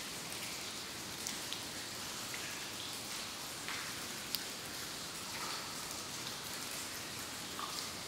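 Water dripping in a cave: scattered drops plink at irregular intervals over a steady hiss, with one sharp drip about halfway through.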